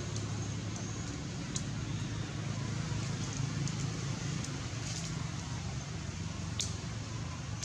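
A steady low mechanical hum, with a few faint clicks.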